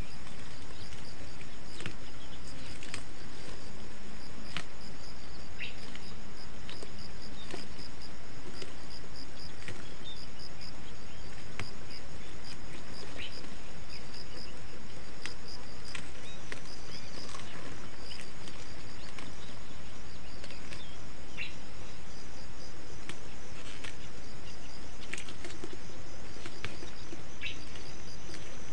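Insects chirping in a steady, evenly pulsed rhythm with a thin, high, steady tone, over a constant hiss. Short chirps and ticks are scattered throughout.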